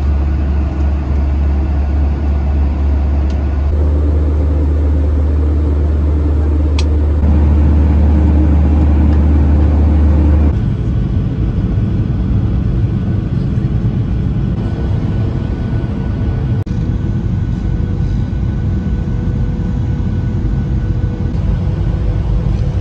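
Steady jet airliner cabin noise inside a Boeing 737-800: the drone of engines and airflow. A deep low hum dominates until about ten seconds in, then drops away, leaving a lighter, even rushing noise.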